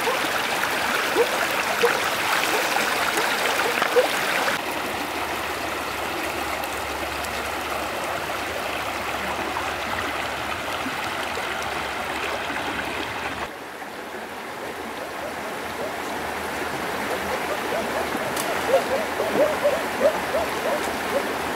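A shallow rocky stream running and gurgling over a low wall of stones. The sound changes abruptly twice, and a run of short, sharper bubbling sounds comes in near the end.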